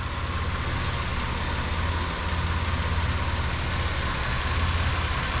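Buick Rendezvous six-cylinder engine idling steadily, its misfire cleared after the sticking EGR valve was tapped, which the mechanic takes for debris knocked loose from the valve.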